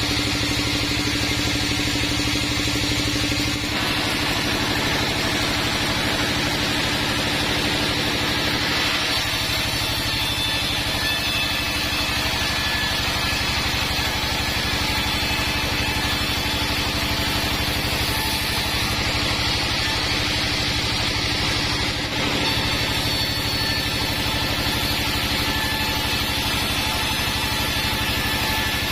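Band sawmill running steadily while sawing waru (sea hibiscus) wood, a continuous machine drone whose tone shifts a few times, at about 4, 9 and 22 seconds in.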